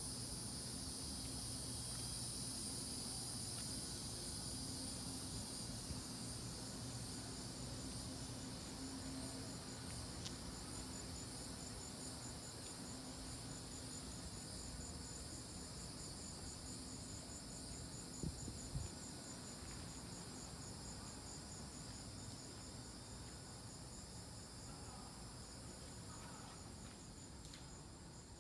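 Chorus of insects singing steadily, with a high, fast, evenly pulsing trill over a steadier high buzz, and a faint low hum beneath. A couple of soft knocks about 18 seconds in.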